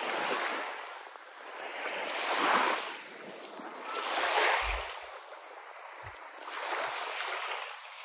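Small waves washing up on a sandy shore, the wash swelling and fading about every two seconds.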